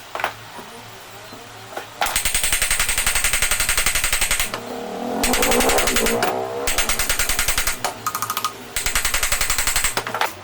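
A power tool run in several bursts, making a rapid, even hammering rattle, with a whirring that changes pitch in one spell near the middle. A couple of sharp clicks come just before it.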